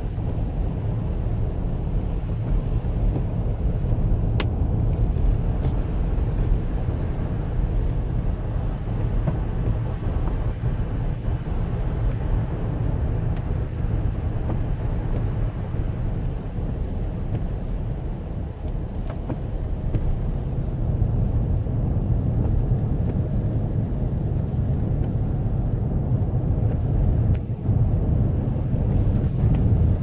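Steady low rumble of a car driving, heard from inside the cabin: engine and tyre noise on a snow-covered road.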